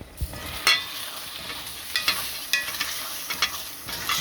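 Taco filling in tomato sauce sizzling in a pan while being stirred, the utensil scraping and knocking against the pan several times.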